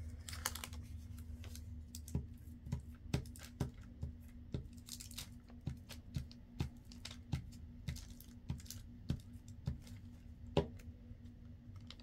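Irregular light clicks and taps of hands handling pieces of paper on a craft mat, roughly one or two a second, with one louder tap near the end, over a steady low hum.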